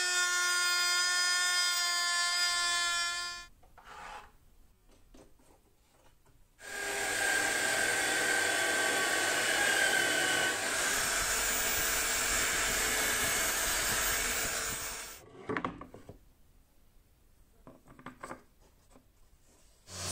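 Trim router with a slot-cutting bit running and cutting into a plywood edge: a loud, steady high-pitched motor whine that stops about three seconds in. After a few seconds of small clicks, a drill press bores into the plywood table top, a loud grinding, rasping drilling noise lasting about eight seconds, followed by more small clicks and knocks.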